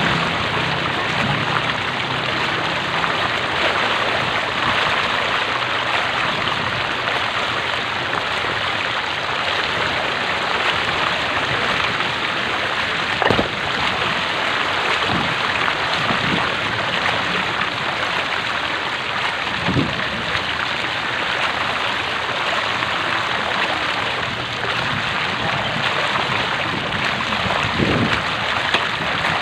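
Floodwater sloshing and rushing steadily as something moves through it, with a few short thumps or splashes, the loudest about 13 seconds in.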